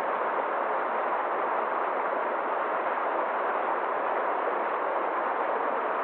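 Forest stream rushing over rocks: a steady, even rush of water.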